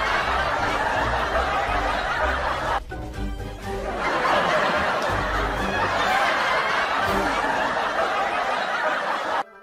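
Laughter and snickering over background music, dipping briefly about three seconds in.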